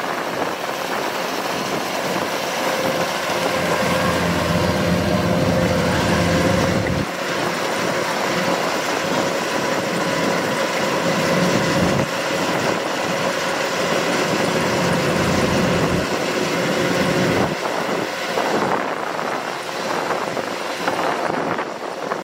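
Kubota DC-105X rice combine harvester running steadily, its diesel engine and threshing machinery giving a constant mechanical noise with a faint hum. The low rumble cuts in and out abruptly a few times.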